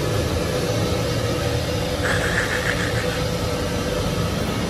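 Steady low hum of idling engines, with a brief fast chatter about two seconds in.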